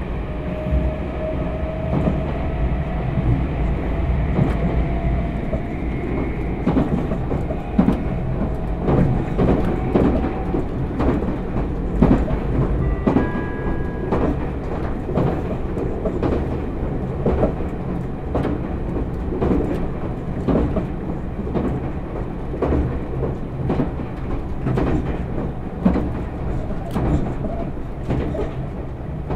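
Meitetsu 1000 series 'Panorama Super' limited-express train running, heard from on board: a steady rumble of wheels on rail with regular clatter over the rail joints. A motor whine slowly rises in pitch over the first ten seconds or so as the train gathers speed, and a short ringing tone passes about thirteen seconds in.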